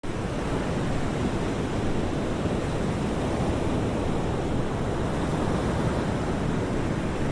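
Ocean surf: a steady rush of breaking waves.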